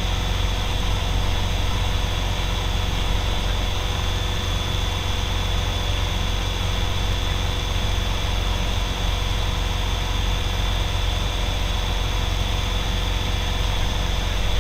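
Moragon M-1 light aircraft's piston engine and propeller running steadily at climb power, heard from inside the cockpit: a constant low drone with a steady hum over it.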